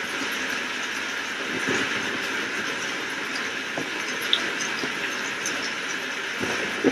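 Steady hiss of heavy rain, with a few sharp taps of drops striking nearby.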